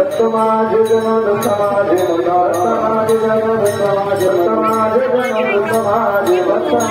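Devotional bhajan singing over a steady low drone, with metal cymbal strokes keeping a beat about twice a second.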